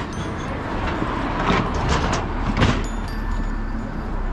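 Outdoor street noise: a steady low rumble of road traffic, with vehicles passing.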